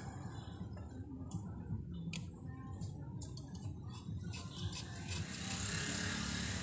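Thin metal blade clicking and scraping against the metal rim of a Bose 301 Series IV woofer as the glued edge is pried loose. A run of sharp small clicks in the first few seconds gives way, about two-thirds of the way in, to a steady hissy scrape.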